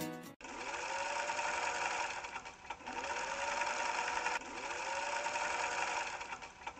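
Electric sewing machine stitching in short runs, its motor pitch rising as it speeds up at the start of each run.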